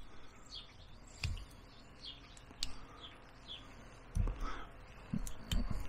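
Carving knife cutting small notches into a wooden dowel: a few sharp clicks and low bumps as the blade and wood are worked, with birds chirping in the background.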